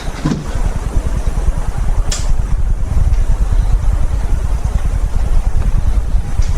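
A vehicle engine running with a steady low rumble, with a short falling squeak just after the start and a brief sharp click about two seconds in.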